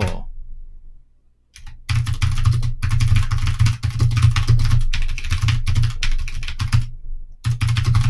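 Fast typing on a computer keyboard: a dense run of key clicks starts about two seconds in, pauses briefly near the end, then resumes.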